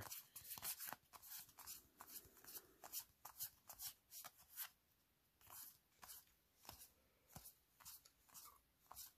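Faint, irregular soft clicks and swishes of Magic: The Gathering cards being slid and flipped one by one through a deck in the hands, about two or three a second with a short pause midway.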